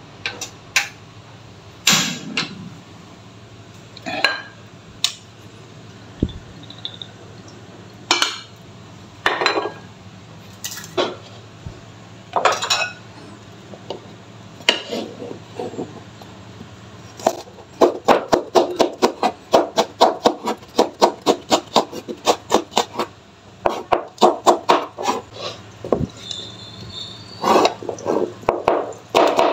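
Kitchen prep sounds: single knocks of ingredients and utensils being set down on a wooden bowl and cutting board, then, from about halfway, a fast even run of knife chops on the cutting board, about five a second, as red chillies are sliced. A low steady hum sits underneath.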